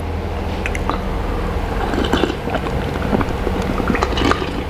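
Ice cubes clinking in a glass mug of iced water as it is lifted, then swallowing sounds as it is drunk near the end. There are scattered short clinks over a steady low hum.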